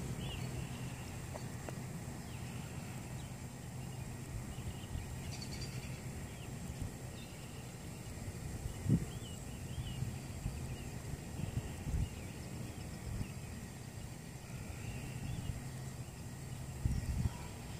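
Evening outdoor ambience: faint, scattered bird chirps over a steady low hum, with a couple of brief soft low thumps about halfway through.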